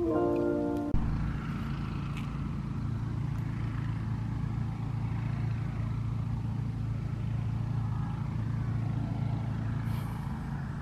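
A vehicle engine running at a steady speed, a constant low hum with road noise. It comes in after a brief pitched tone that cuts off about a second in.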